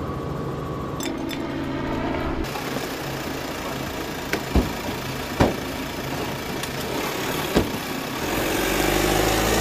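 A vehicle engine running steadily, with three or four sharp cracks in between, and a low rumble growing louder near the end.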